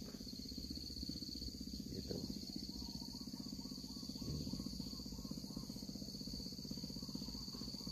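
Steady, unbroken high-pitched chorus of insects, over a low rumble.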